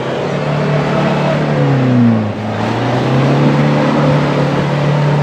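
Off-road SUV's engine revving hard under load as its wheels spin and churn through deep mud. The engine note sags briefly about two seconds in, then picks up again and holds.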